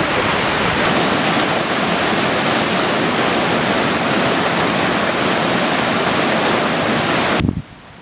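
Fast river water rushing and churning over rocks: a loud, steady whitewater rush that cuts off abruptly near the end.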